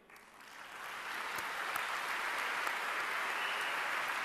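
Large audience applauding, building up over the first second and a half into steady clapping.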